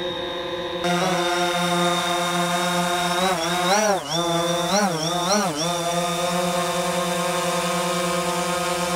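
DJI Phantom 4 Pro quadcopter's propellers and motors whining as it hovers, a steady pitched drone. Between about three and six seconds in the pitch wavers down and up about four times as the motor speeds change, then settles back to a steady hover tone.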